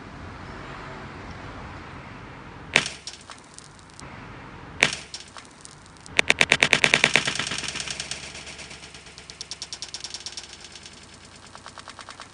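Two sharp bangs about two seconds apart, then a rapid, even run of pops, about ten a second, that fades over several seconds.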